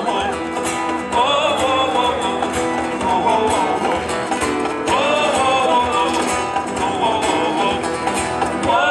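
Live band music: a man singing over acoustic guitar.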